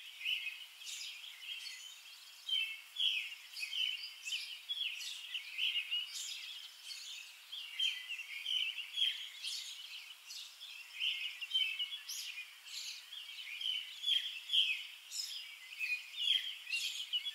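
Birds singing: many short chirps and calls, one after another and overlapping.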